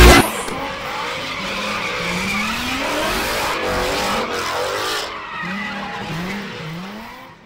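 Loud music cuts off just after the start, leaving cars doing burnouts and drifts: engines revving in rising sweeps and tyres squealing and skidding. Near the end there are several short rising revs, and then the sound fades out.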